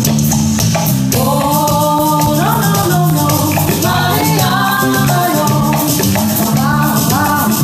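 Live band playing a song: a woman sings lead over electric bass, electric guitar and a drum kit keeping a steady beat.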